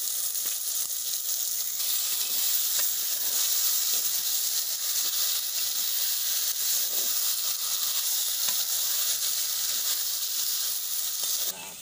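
Chicken pieces sizzling as they fry in a clay pot (handi), stirred with a ladle. It is a steady hiss with faint scattered ticks, and it cuts off suddenly near the end.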